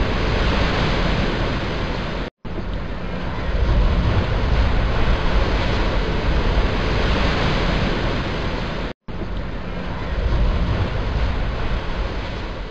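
Breaking surf and foaming whitewater rushing steadily, with wind buffeting the microphone. The sound cuts out abruptly twice for a split second, and fades near the end.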